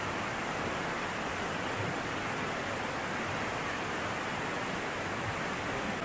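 Steady rush of a fast mountain stream tumbling over rocks.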